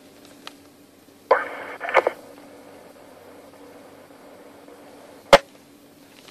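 Police radio: a short, garbled burst of transmission opened and closed by key clicks, then a single sharp click about five seconds in, over a steady low hum.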